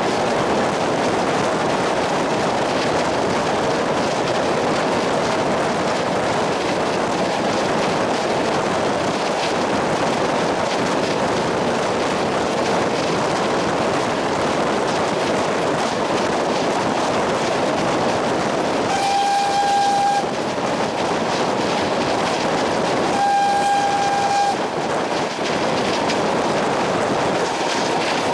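Train running on the rails with a steady rumble, and two blasts of a single-note horn, each a little over a second long and about four seconds apart, about two-thirds of the way in.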